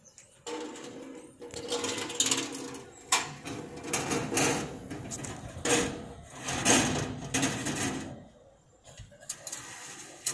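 Mechanical rattling and whirring from a recovery truck as a car is secured on its bed: a steady hum under uneven, louder rattling surges. It starts about half a second in and stops about eight seconds in, followed by a few fainter knocks.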